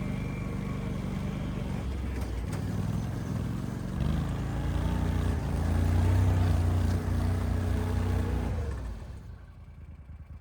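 Argo amphibious ATV's engine running as it is driven, louder about four to seven seconds in, then fading out near the end.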